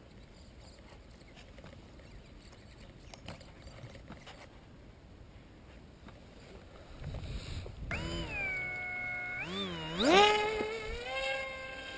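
Small electric motor and propeller of a lightweight RC foam flying wing whining. The whine starts about eight seconds in. Around ten seconds it sweeps sharply up in pitch as the throttle is opened for a hand launch, then holds a steady high whine. Before it there are only a few faint clicks from handling the wiring.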